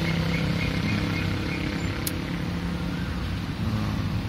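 Steady low hum of a running motor, its strongest pitch fading about three seconds in, with a single sharp tick about two seconds in.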